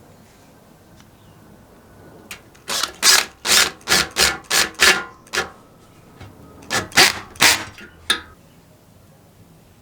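Quick rasping strokes of a hand tool scraping or rubbing, a run of about eight strokes at roughly three a second, then a pause and four more.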